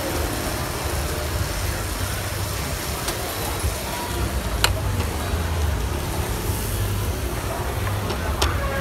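Steady low rumble of street traffic, with two sharp knocks from the pan and utensils being handled, one a little under five seconds in and one near the end as the spaghetti is tipped from the pan onto a plate.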